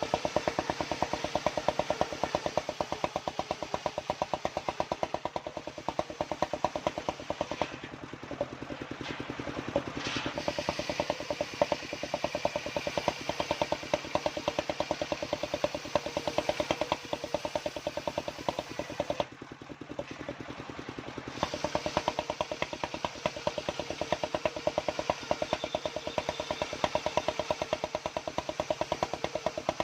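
The engine of a home-built circular saw rig running with a fast, even chugging pulse. It drops in level briefly twice.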